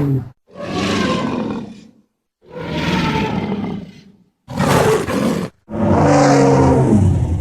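Monster and dinosaur creature roar sound effects played one after another: the end of one roar, then four separate roars of one to two seconds each with brief silences between them. The last roar is longer and carries a low, steady growling pitch.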